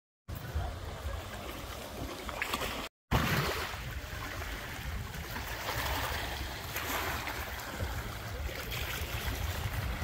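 Small waves lapping and washing over a pebble shore, with wind buffeting the microphone; the sound drops out for a moment about three seconds in.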